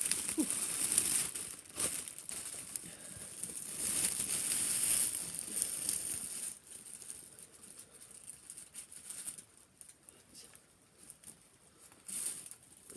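Clear plastic wrapping crinkling and rustling as it is pulled at by hand to get it open. It is busy for the first half, then turns quieter, with scattered small crackles and a short louder rustle near the end.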